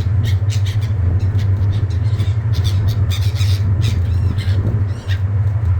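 Seagulls squawking, many short sharp calls close together with a couple of longer falling cries near the end, over a steady low drone.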